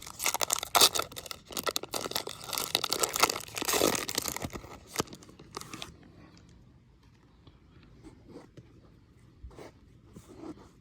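Trading-card pack wrapper being torn open and crinkled for about six seconds, then only faint clicks and rustles of cards being handled.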